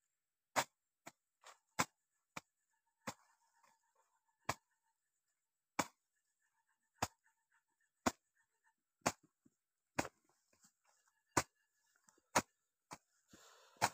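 A hand tool chopping into soil and weeds: a series of sharp, separate strikes at an uneven pace of roughly one a second.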